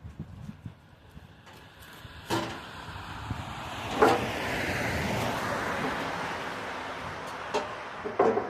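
A few sharp knocks, one a couple of seconds in and more later, with a steady hiss that starts at the second knock and lasts about four seconds.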